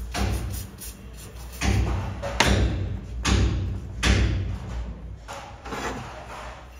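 A series of heavy thumps, about seven, roughly one a second, each dying away quickly, over a steady low hum.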